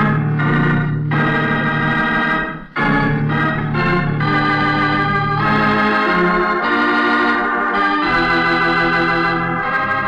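Organ music bridge: sustained chords that change every second or two, with a brief break about two and a half seconds in.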